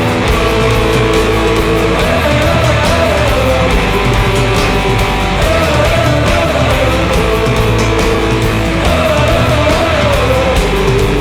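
Loud rock music with distorted guitars and a steady beat.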